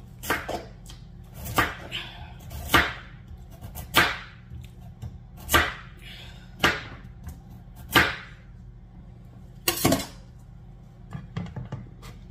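Kitchen knife slicing through a raw beetroot, about nine crisp cuts at roughly one a second, with a few lighter clicks near the end.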